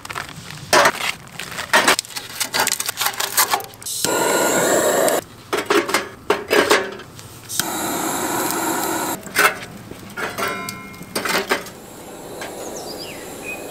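Lumps of charcoal knocking and clinking as they are handled and set into a small metal camp grill, in clusters of sharp knocks. Twice a steady rushing noise lasts about a second, and faint bird chirps come near the end.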